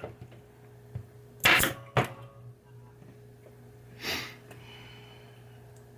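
Hookup wire being handled and pulled into place on the underside of a pinball playfield: a few short scrapes and sharp clicks, the loudest about a second and a half in, with a softer rustle near the end. A steady low hum runs underneath.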